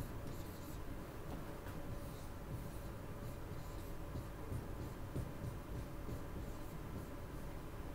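Dry-erase marker writing on a whiteboard: a run of faint, short strokes as words are written out.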